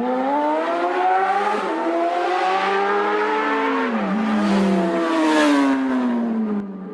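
Motorcycle engine running and revving. Its pitch climbs gradually, dips sharply about four seconds in, then rises and falls again.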